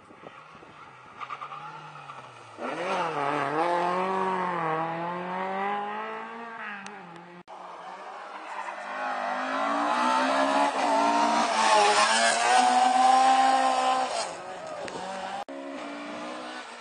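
Rally car engines at full stage pace, revving hard with the pitch climbing and dropping again and again through gear changes and corners, growing louder as each car approaches. The sound jumps abruptly twice where separate passes are cut together.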